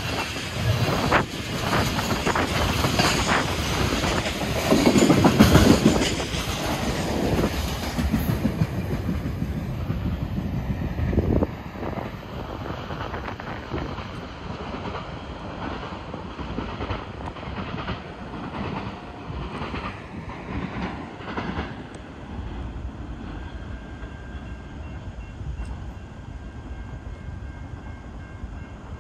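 Freight train tank cars rolling past close by, their wheels clacking over the rail joints. The last car goes by about eleven seconds in, and the rumble then drops and fades as the train moves away.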